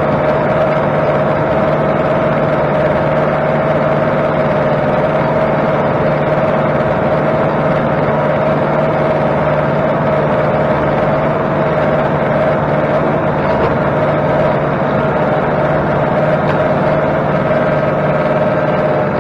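Kubota M8200 diesel tractor running steadily at working speed, driving a bush hog (rotary cutter) through brush. It holds one constant drone with no change in pitch.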